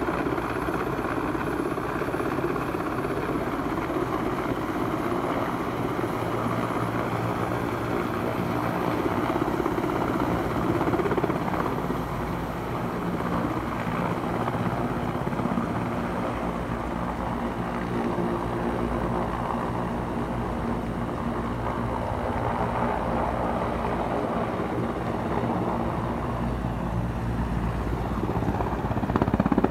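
Large twin-turbine Mil Mi-8-type helicopter hovering low as it comes in to land, its rotors and turbines making a steady, continuous noise that grows louder right at the end.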